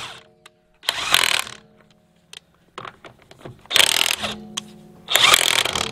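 DeWalt DCF899 cordless 1/2-inch brushless impact wrench hammering lug nuts tight on a truck wheel in three short bursts of "ugga-duggas", the motor whine fading after each burst.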